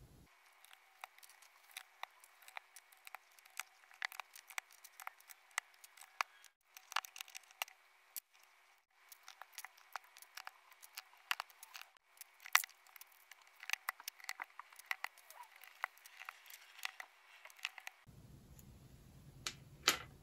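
Plastic keycaps being pulled off a NuPhy Air75 V2 low-profile keyboard with a keycap puller and set down on the desk: a quick, irregular run of sharp little clicks, several a second, with short pauses between runs.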